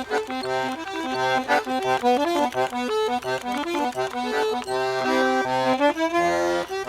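Accordion (sanfona) playing a quick folk melody over short, regular bass notes, settling on a held chord about six seconds in.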